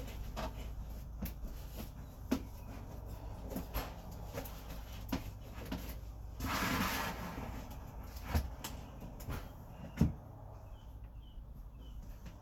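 Scattered knocks and clicks of things being handled, with sharp knocks about two, eight and ten seconds in and a brief rustling scrape about seven seconds in, like a cupboard or drawer being searched.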